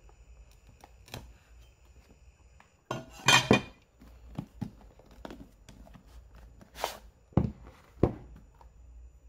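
Objects handled on a tabletop: a large metal cleaver shifted on the table with a short loud metallic clatter about three seconds in, then scattered knocks and two low thuds as the cardboard phone box is set down near the end.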